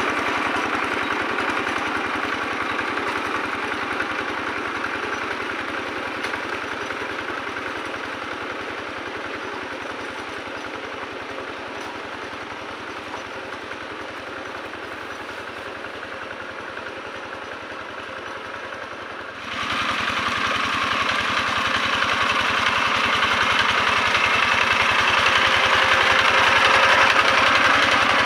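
Single-cylinder diesel engine of a Quick G1000 two-wheel hand tractor running steadily under load as it churns through paddy mud. It fades as the tractor moves away, then is abruptly loud and close about two-thirds of the way through.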